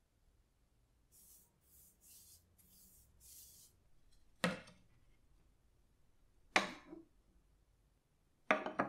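A few short hissing strokes, then restored wooden parts set down on a table: three sharp wooden knocks about two seconds apart, the last a quick rattle of knocks.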